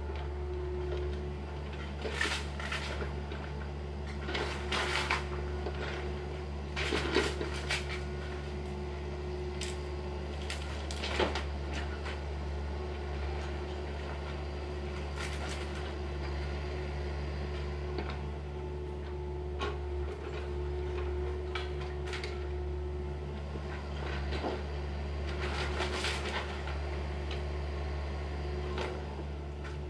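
Excavator engine running low and steady at a wooden-house demolition, with scattered clattering knocks of wooden debris being broken and loaded, loudest about two, five, seven and eleven seconds in and again near twenty-six seconds.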